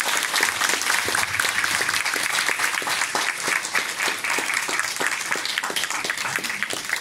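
Audience applauding: many hands clapping steadily, easing a little near the end.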